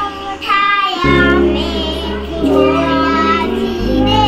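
A song with a high, child-like singing voice over instrumental backing and a sustained bass line. The bass notes change about a second in and again near the end.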